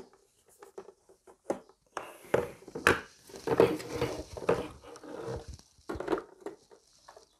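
Handling noise: irregular rustles, clicks and knocks as plastic parts and packaging are moved about.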